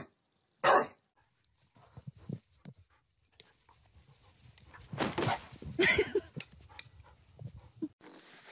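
A bulldog gives one short, sharp bark just under a second in. A few seconds later comes a cluster of louder, unidentified sounds.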